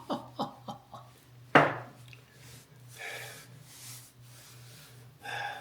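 Handling of headlining support rods and fabric: a quick run of light knocks fading away, then one sharp, loud knock about a second and a half in, followed by faint rustling.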